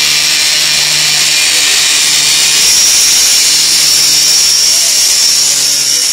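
Small internal-combustion engine of a live diesel garden-scale model locomotive running, a steady high-pitched whine over a low hum, loudest about halfway through.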